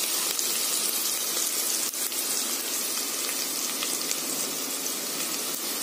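Chopped onions sizzling steadily in hot oil as they fry.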